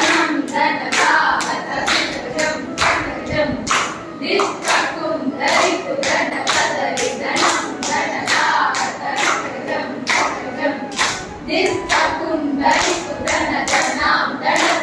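Group of dancers clapping a steady beat, about two to three claps a second, while voices chant rhythmic Kuchipudi jathi syllables together.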